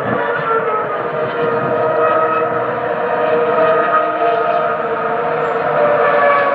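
Several Ferrari racing car engines at high revs, heard from far off: a steady blend of high engine notes that drift slowly up and down in pitch.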